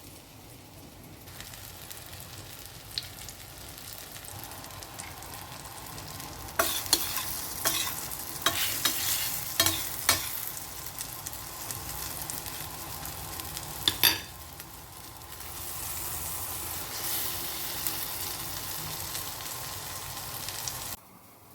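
Eggplant omelette sizzling as it fries in oil in a pan. In the middle comes a run of sharp knocks and scrapes, the loudest part, then the steady frying goes on until it cuts off suddenly near the end.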